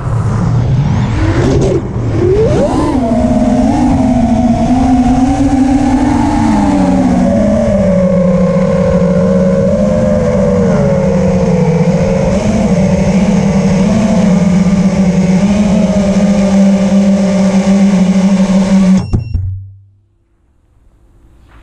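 Four brushless motors (T-Motor F80 Pro 2500KV) of an FPV racing quadcopter spinning HQprop Ethix S3 propellers. The buzzing whine swoops up and down in pitch with the throttle over the first few seconds, then holds steady, and cuts off suddenly near the end as the quad lands and its motors stop.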